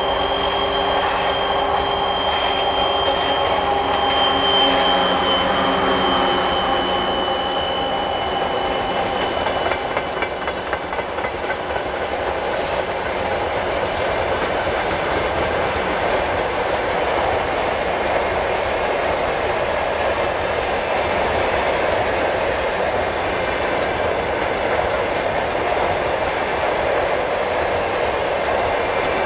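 Freight train passing: the 2TE116 twin-section diesel locomotive goes by first, with a steady hum of several tones and a high whine that fades out by about ten seconds in. A long string of tank cars then rolls past with a steady clatter of wheels over the rail joints.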